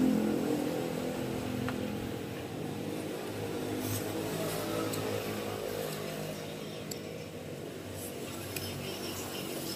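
Motor vehicle engine running with a steady low hum in the background, with a few light clicks about midway and near the end.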